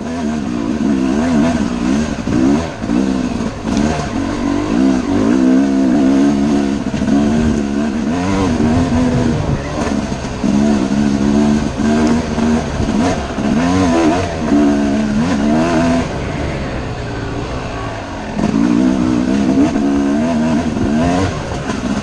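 Yamaha YZ250 two-stroke dirt bike engine being ridden hard, its pitch climbing and dropping over and over with throttle and gear changes. It eases off briefly near the end, then revs up again.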